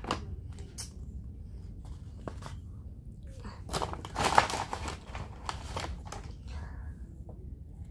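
Crinkling and crunching from someone eating fast food and handling its paper packaging, with a few sharp clicks at the start and the loudest stretch of crinkling about four seconds in.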